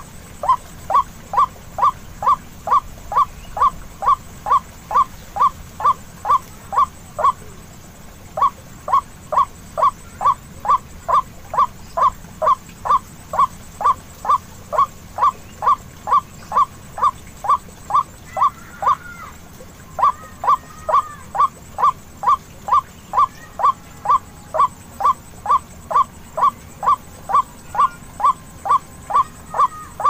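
Recorded white-breasted waterhen calls played as a bird lure: a short call repeated in a steady rhythm about two times a second, pausing briefly twice. Fainter, higher calls join in for a few seconds in the middle.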